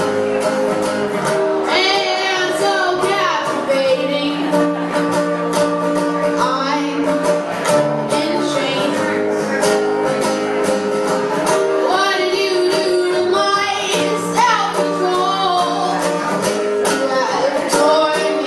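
Live acoustic song: a strummed acoustic guitar and an upright bass, with a voice singing several phrases over them.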